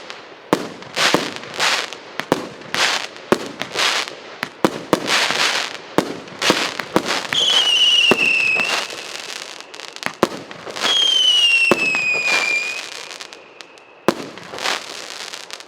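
A 48-shot, 1.25-inch consumer firework cake firing: a rapid series of shots, about two a second, each ending in a crackling burst. Two drawn-out whistles, falling slightly in pitch, come about seven and eleven seconds in. The shots thin out to a last one near the end.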